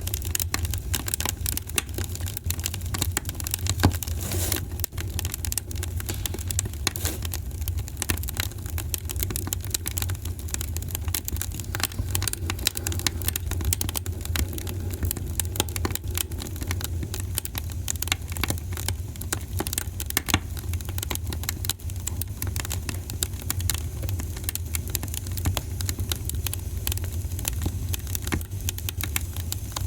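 Wood fire crackling in a fireplace: a steady low rumble of flames with dense, irregular pops and snaps, a few louder ones standing out.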